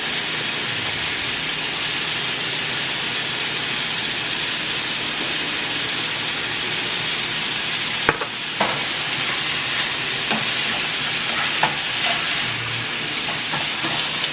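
Food sizzling steadily in a frying pan, a continuous hiss, with several sharp clicks from about eight seconds in.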